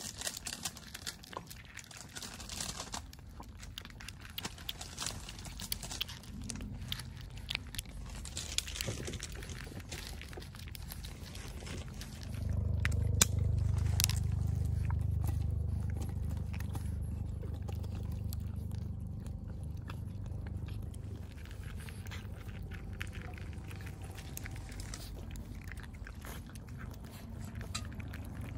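Several cats chewing and crunching dry kibble close up: a run of small, quick crunching clicks. About halfway through, a low rumble comes in and slowly fades.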